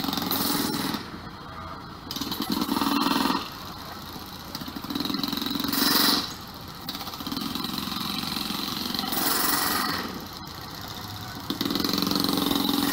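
Track-repair machinery at work on the rail line, running in about six bursts of a second or so, with short pauses between.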